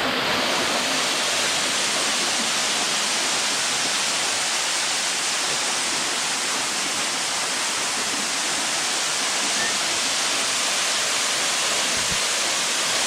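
Norvan Falls waterfall: a steady, loud rush of falling water, even and unbroken.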